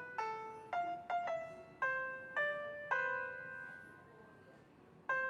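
Piano playing a slow melody one note at a time, each note struck and left to fade; the last note is held and dies away before a new note sounds near the end.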